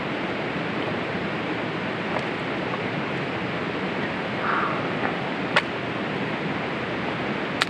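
Steady rushing noise of rain and wind, broken by a few sharp clicks, the clearest about five and a half seconds in and again near the end.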